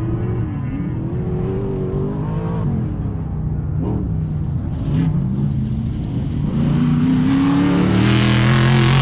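Off-road race vehicle's engine revving up and down repeatedly, getting louder and brighter over the last few seconds.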